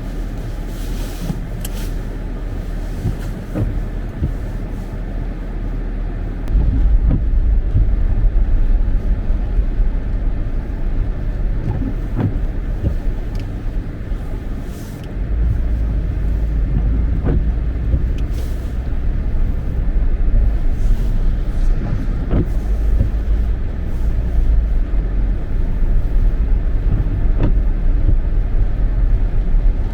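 A car driving on a snowy highway in a blizzard: steady engine and road rumble that gets louder about six seconds in and again around fifteen seconds, with a few scattered light knocks.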